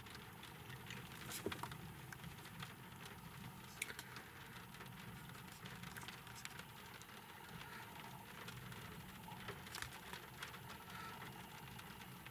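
Low steady hum inside a parked car, with scattered light ticks of raindrops hitting the windscreen.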